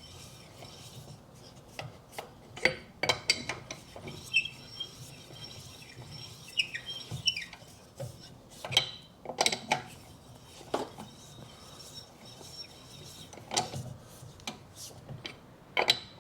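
Scattered metallic clinks, knocks and scrapes of a wheel brace being fitted onto the wheel bolts and turned to nip them up, with a little metallic ringing after some of the knocks.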